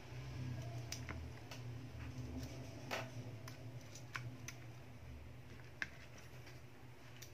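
Vivo Y11's plastic back cover pressed down onto the phone's frame, giving a scattered series of sharp clicks as its clips snap into place, over a steady low hum.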